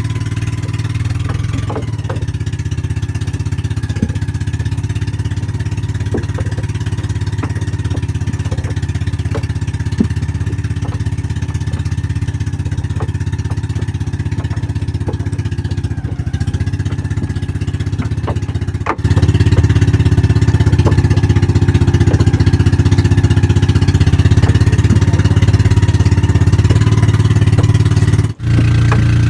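A small pumpboat's engine running steadily, growing louder about two-thirds of the way through, with light ticks and splashes of fish and water being handled in a tub.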